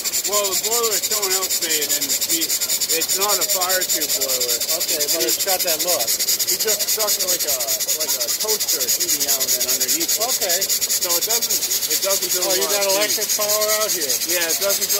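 Small model horizontal steam engine running fast, its exhaust a rapid, even chuffing hiss.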